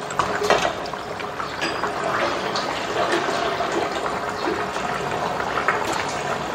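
Thick fish curry bubbling at the boil in a clay pot, a steady liquid simmer, with a wooden spatula stirring through it in the second half.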